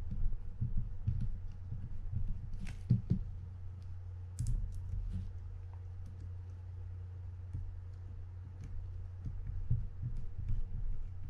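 Small scattered clicks and taps of a mini screwdriver and metal parts as screws are driven into the side plate of a Penn 320GTi levelwind fishing reel. A few sharper clicks come about three and four and a half seconds in, over a steady low hum.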